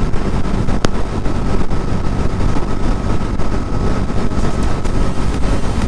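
Bajaj Dominar 400's single-cylinder engine running at cruising speed, with wind rush over the microphone. A single sharp click about a second in.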